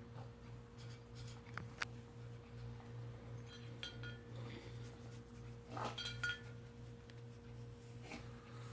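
Cat eating wet food from a dish: a few light clicks and short ringing clinks against the dish, over a steady low hum.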